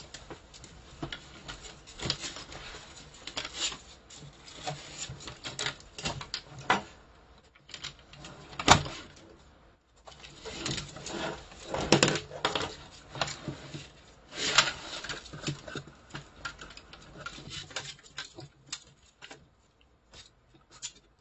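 Ferrets clambering over a desk of art supplies, claws tapping and scrabbling on metal paint and pencil tins and knocking small items about: irregular clicks and light rattles, with one sharp knock about nine seconds in.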